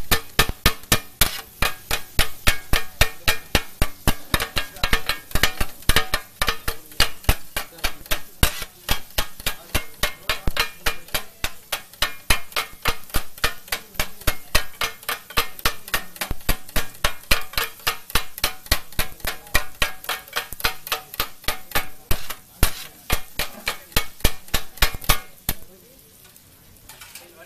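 Two flat metal blades chopping kothu parotta on a large iron tawa: fast, rhythmic metallic clanging of several strikes a second, with a ringing edge. The chopping stops about two seconds before the end.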